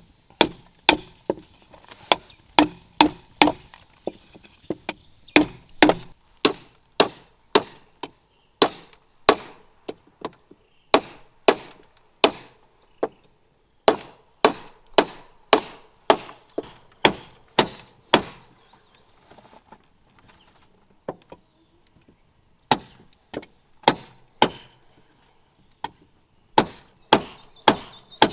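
A heavy jungle knife chopping and shaving a short section of bamboo, giving sharp woody knocks at about one to two a second. There is a lull of a few seconds about two-thirds of the way through.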